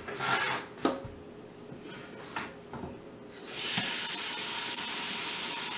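A few light knocks, then about three and a half seconds in a kitchen faucet comes on and water runs steadily into a stainless steel pot, filling it.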